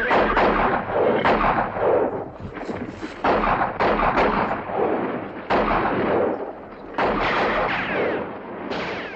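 Gunfight from a Western film soundtrack: a string of loud gunshots, roughly one a second, each ringing out with a long echo.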